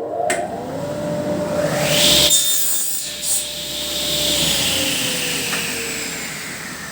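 Table saw crosscutting two stacked pieces of wood together, loudest about two seconds in, then the blade winding down with falling pitch through the second half.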